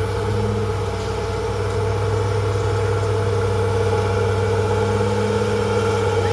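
Heavy diesel engine of earthmoving machinery running steadily at a constant speed, with a low hum and a strong mid-pitched drone.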